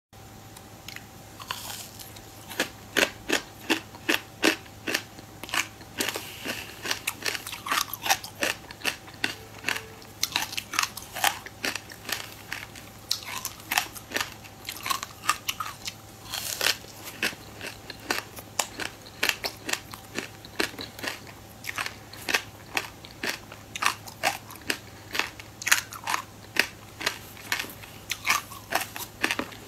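Close-miked crunching and chewing of a clumped slab of raw buckwheat grains: a steady run of sharp, crackly bites and chews, several a second.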